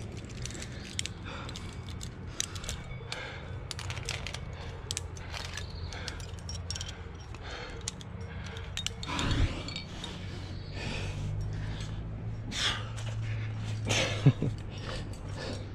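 Trad climbing rack of cams and carabiners clinking and jingling on a climber's harness as he moves up a granite crack, with scrapes of hands and shoes on the rock. There is a louder scrape about nine seconds in and a sharp knock near the end.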